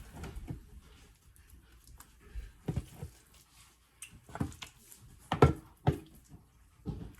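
Spoon knocking and scraping against a bowl and the potato skins as mashed potato filling is scooped and stuffed into baked potato skins. The knocks are irregular, with the loudest a little past five seconds in.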